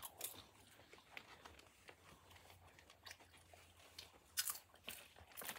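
Quiet handling sounds: soft rustling and a few small clicks as a plush toy and a small plastic item are handled, the loudest about four and a half seconds in.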